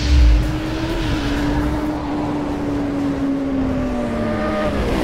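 Logo-sting sound effects: a deep boom right at the start, then a steady engine-like drone that slides slowly down in pitch toward the end.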